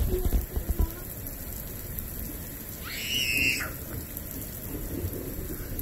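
Steady rain falling on a patio and yard. There are a few knocks in the first second, and a short high-pitched squeal about three seconds in.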